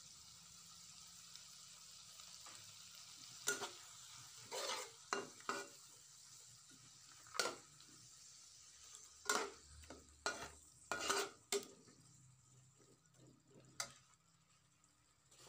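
Water spinach stir-frying in a wok: a steady sizzle, with the metal spatula scraping and knocking against the pan every second or so as the greens are turned. The sizzle fades near the end.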